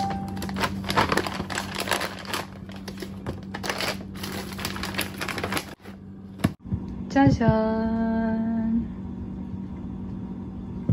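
Crinkling of a plastic frozen-fruit bag and clicking of plastic storage drawers being handled inside a freezer, over a steady low hum. About seven seconds in, a woman's voice draws out a sing-song "ta-da".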